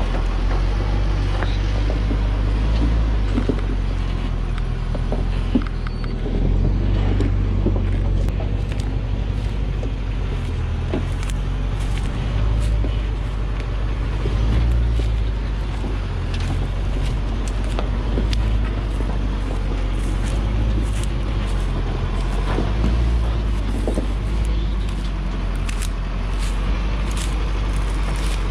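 Heavily loaded Hoa Mai logging truck's diesel engine running at low revs as the truck crawls along, a steady low rumble with scattered clanks and knocks throughout.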